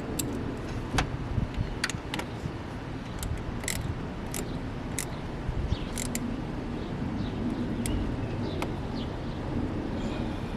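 Irregular light metallic clicks and taps of a wrench working on car battery terminal clamps, over a steady low background rumble.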